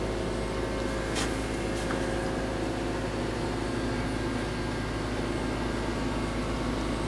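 Steady mechanical hum with a low rumble, with one faint click about a second in.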